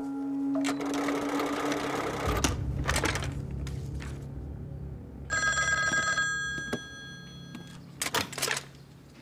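Old desk telephone's bell ringing once for about a second, after some clicks of the phone being handled; a few sharp clicks follow near the end as a handset is lifted off its cradle.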